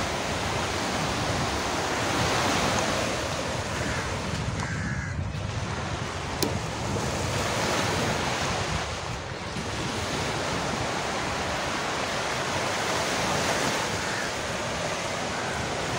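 Steady rush of small waves breaking on a sandy beach, with wind buffeting the microphone.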